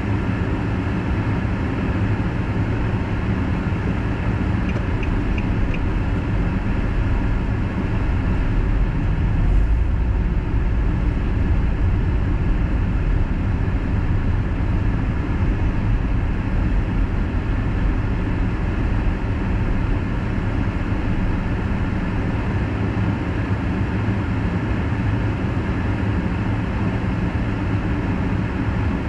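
Car driving at speed on an expressway: steady tyre and engine rumble heard from inside the cabin, with a brief louder swell about ten seconds in.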